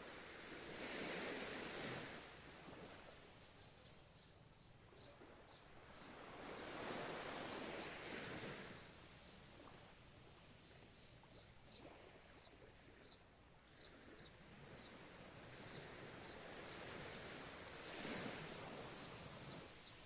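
Ocean waves washing in, faint, three swells rising and falling a few seconds apart over a steady hiss of surf. Quick, high, repeated chirps run through the gaps between the swells.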